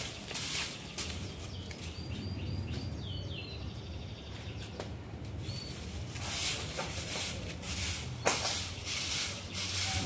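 Long-handled straw broom swishing over a cement floor in repeated strokes. A bird chirps a short run of quick falling notes about two to three seconds in, over a low steady hum.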